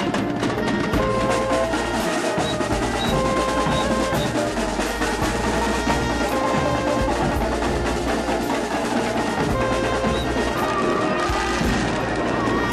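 Marching band drum section playing a dense, fast beat on snare drums, bass drums and cymbals, with a short high melodic phrase repeating over it.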